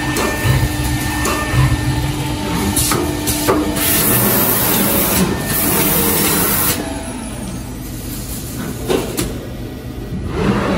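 CNC panel drilling machine running, with a steady motor whine and scattered clicks, then a loud hiss for about three seconds midway, after which it runs quieter with a few knocks.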